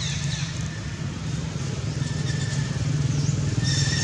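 A motor engine running steadily, a low pulsing hum. Short high chirps come over it, most of them near the end.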